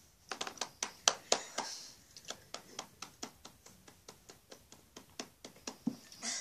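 A quick, irregular run of sharp taps or clicks, several a second, that starts about a third of a second in and stops near the end.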